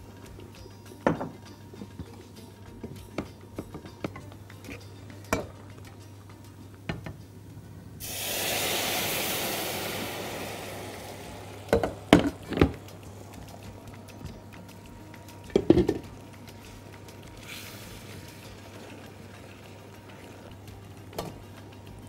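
Silicone spatula stirring a thick butter-and-flour sauce in a nonstick wok, with scattered light knocks and scrapes against the pan. About eight seconds in, a burst of sizzling starts suddenly and fades away over about three seconds.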